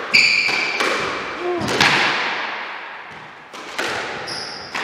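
Squash rally: a string of sharp knocks as the rubber ball is struck by rackets and hits the court walls, each knock ringing on in the echoing court.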